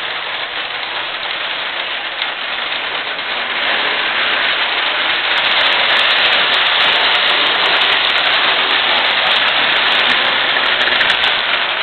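Marx 666 toy train locomotive running under load, pulling a freight train on tubular three-rail track: a steady rattling hum of its electric motor, gears and wheels. It gets louder about four seconds in.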